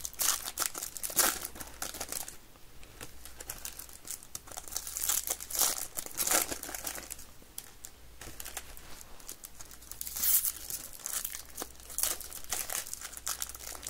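A baseball card pack's wrapper crinkling and tearing as it is ripped open by hand, in several bursts of crackling.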